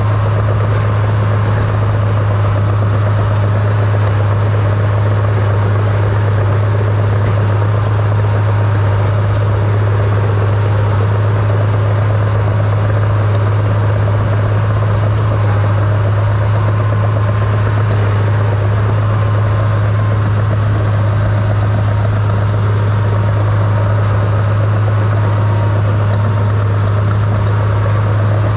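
Crawler bulldozer's diesel engine running at a steady speed, heard from the operator's seat: a loud, constant low drone with no change in pitch.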